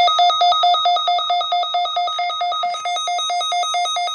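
Weather radio receiver's alert alarm beeping rapidly and evenly, about seven electronic beeps a second, set off by the weekly test of the NOAA weather radio warning alarm.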